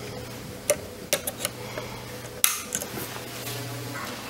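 Several sharp small clicks and taps of hand tools on a repair bench, the loudest about halfway through, over a steady low electrical hum.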